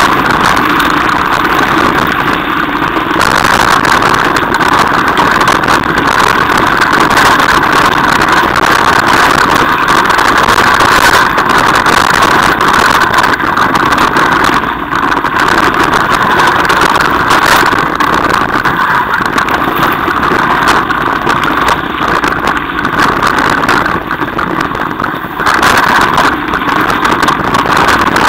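Mountain bike rolling fast over a rough gravel and stone track: a steady loud rattle and tyre noise on the loose stones, peppered with small knocks from the bumps.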